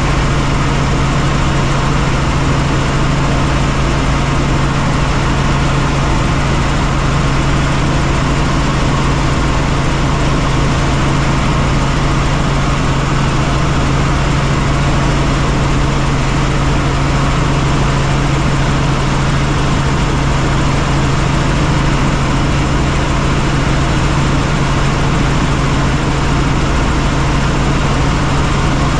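Helicopter engine and rotors running steadily: a constant low hum over an even rush of noise, with no change in pitch or level.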